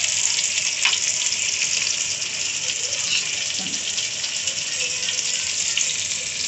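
Stuffed bell peppers deep-frying in hot oil, giving a loud, steady sizzle, with a single sharp click about a second in.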